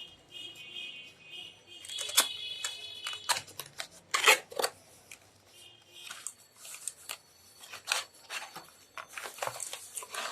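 Keyboard packaging being handled and opened: irregular crinkling, tearing and scraping with sharp clicks and knocks.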